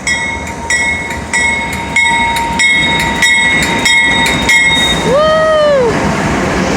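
Level-crossing bell dinging about one and a half times a second while a CSX freight train's locomotives rumble past, growing louder about two seconds in. The bell stops near the end, and a person gives a rising-then-falling "woo".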